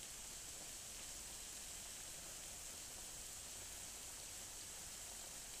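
Heavy thunderstorm rain falling steadily, a constant hiss of rain on paving and foliage.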